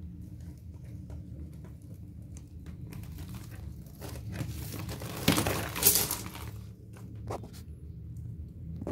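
Rustling and crunching with scattered small clicks over a low steady hum, and a louder rustle a little past halfway that lasts about a second.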